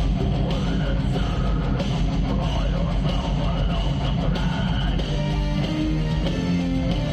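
Heavy metal band playing live: distorted electric guitars over a drum kit, with a melody line that bends up and down in pitch during the first few seconds.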